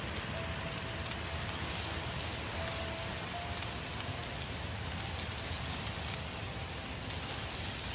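Forest-fire ambience: a steady rush of burning with scattered small crackles and pops. A few faint, long-held notes of music sit underneath.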